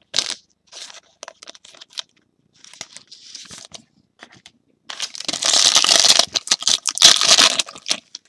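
A trading-card pack wrapper being handled and then torn open. Light rustling and clicking of cards and wrapper for the first few seconds, then a loud crackling tear lasting about three seconds, starting about five seconds in.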